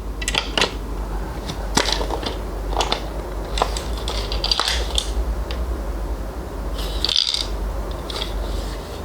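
Small hard objects being handled: irregular clicks, taps and short scrapes, over a steady low hum.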